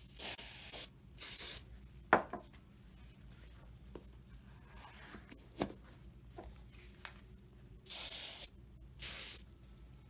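Four short bursts of spray, two close together at the start and two close together near the end, with a couple of light knocks in between.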